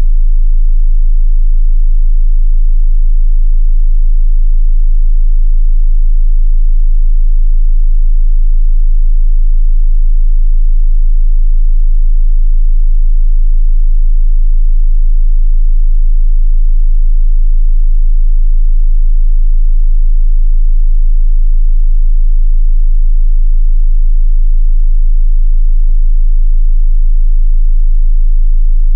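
Steady 27 Hz sine-wave test tone: a very deep, pure bass hum held at a constant level.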